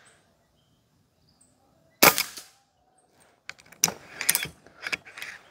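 A single shot from a Karma SLS .22 PCP air rifle about two seconds in, a sharp crack with a short tail. A quick series of metallic clicks and clacks follows as the side lever is worked to cycle the next pellet from the magazine.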